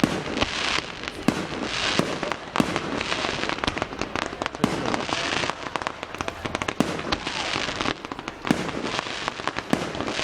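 Fireworks going off: a dense, irregular string of sharp bangs over a continuous crackling hiss.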